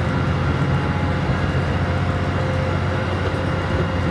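KiHa 183 series North Rainbow Express diesel railcar running, a steady low rumble of its diesel engines and wheels on the rails, heard from inside the train.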